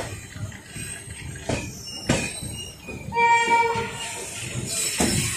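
Indian Railways train running over the tracks, its wheels rumbling and knocking over rail joints with a few sharp clacks. A short train horn blast sounds about three seconds in and lasts under a second.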